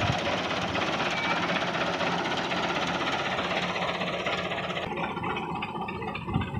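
Farm tractor's diesel engine running steadily with a knocking beat, the sound turning duller about five seconds in.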